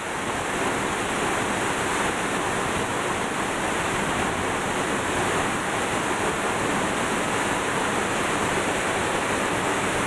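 Steady, unbroken rush of falling water from La Fortuna waterfall.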